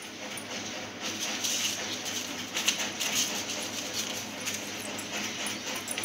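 Paper banknotes rustling and crinkling as hands fold and handle them, an uneven run of soft crackles.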